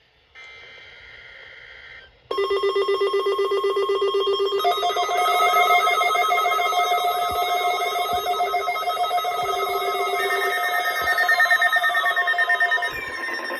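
Emergency alert tones. First a short burst of high data-like tones, then about two seconds in several electronic alarm tones start at once: fast-pulsing beeps over steady tones, with more layers joining. Falling, whistle-like glides come in near the end.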